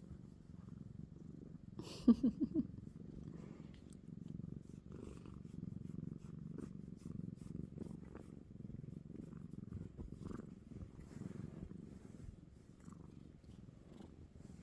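A cat purring steadily, a low continuous sound. About two seconds in comes a brief, louder run of four quick pitched sounds.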